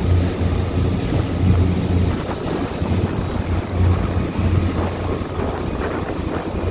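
Albemarle 27 sportfishing boat running at speed: a loud, steady low engine drone that swells and dips, under wind buffeting the microphone and spray hissing off the hull.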